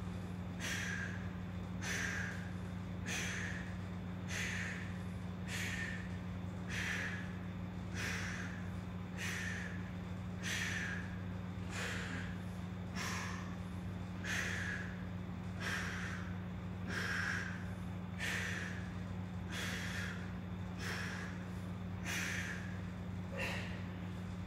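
A man breathing hard and sharply in and out, one short breath about every three-quarters of a second, with the effort of bent-over one-arm dumbbell rows. A steady low hum runs underneath.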